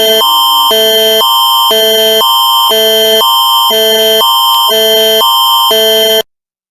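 Canadian Alert Ready attention signal: two electronic chords alternating about twice a second over a steady high tone, cutting off suddenly near the end.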